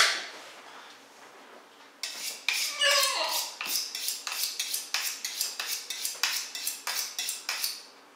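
A fillet knife being honed on a sharpening steel: quick metallic scraping strokes, about three a second, starting about two seconds in. A single sharp knock comes at the very start.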